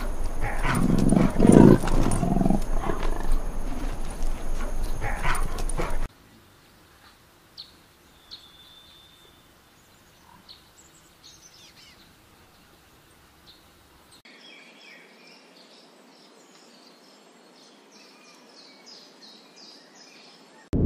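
A leopard growling for about six seconds, loudest in its first two seconds, then an abrupt cut to quiet with faint, scattered high bird chirps that turn into a quick run of repeated chirps near the end.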